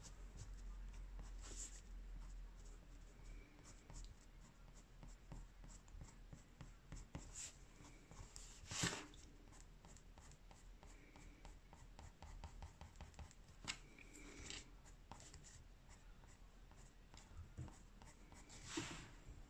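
Faint scratching of a white coloured pencil stroked over paper, in many small strokes. A brief louder handling noise comes about nine seconds in and again near the end.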